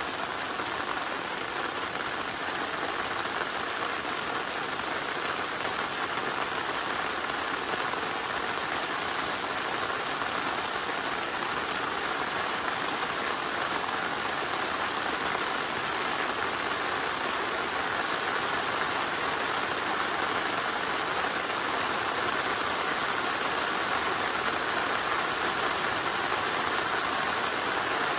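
Steady rain falling, an even hiss of drops with no single strikes standing out.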